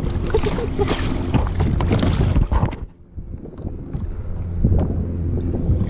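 Wind buffeting the microphone over water splashing and lapping against a paddleboard, dipping briefly about three seconds in.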